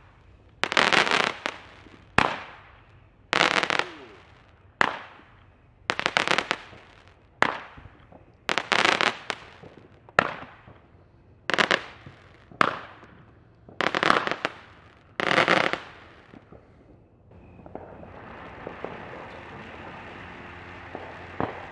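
A run of loud firework crackles and sharp bangs, about one every second and a half. After a brief pause it gives way, about 17 seconds in, to the steady hissing spray of a ground fountain firework.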